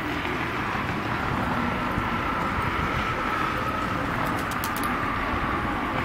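Empty covered grain hopper cars of a freight train rolling away along the track: a steady rumble of steel wheels on rail with a faint high, slightly falling wheel squeal.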